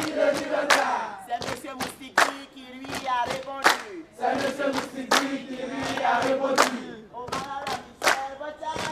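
A group of voices chanting or singing together in unison on held notes, with sharp hits, like claps, every half second or so.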